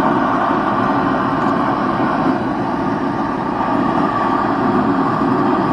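Propane forge burner running with a steady, even rush.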